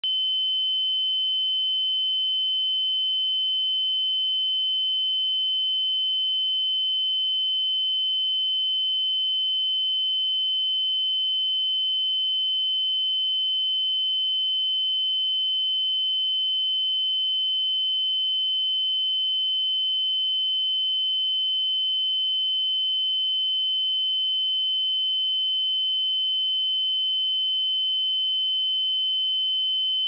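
A pure 3057 Hz sine-wave test tone, one steady high-pitched beep held at constant pitch and level.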